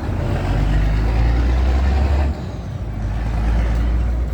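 A motor vehicle's engine running with a loud, low rumble. The level drops suddenly about two seconds in, then rises again.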